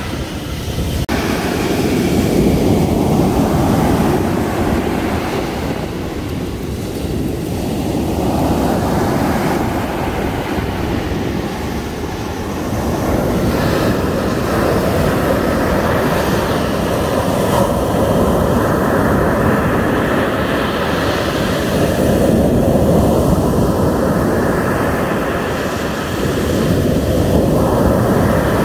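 Heavy surf on a rough sea: big waves breaking and washing up the beach in a continuous loud rumble that swells and eases every several seconds.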